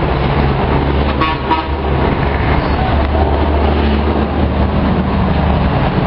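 Steady road traffic noise from a busy multi-lane highway, with a vehicle horn tooting briefly about a second in.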